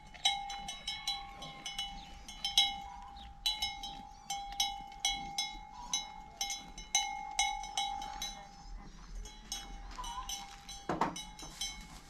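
Several metal livestock bells clanking irregularly, two or three strikes a second, each ringing on briefly.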